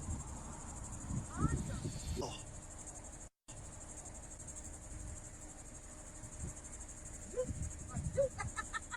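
Crickets trilling steadily in a high, continuous pulsing chirr, with low rumbles and faint murmuring voices underneath.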